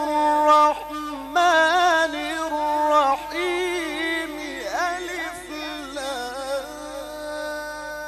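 A man's voice in melodic Qur'an recitation, drawing out a long vowel with wavering, trill-like ornaments. It grows softer and steadier toward the end.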